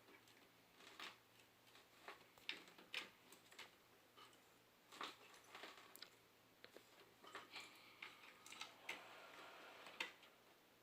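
Faint, irregular small clicks and taps of computer parts and cables being handled inside a desktop PC case.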